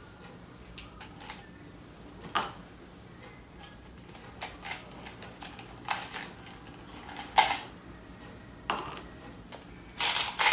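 Mike and Ike candies clicking and rattling into a clear plastic cup in scattered short bursts. The loudest comes about seven seconds in, with a busier patter near the end.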